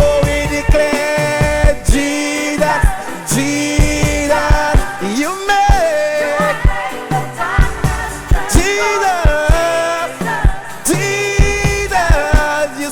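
Live gospel worship music: a band playing with held, gliding vocal or instrumental lines over a steady beat of drum and bass hits.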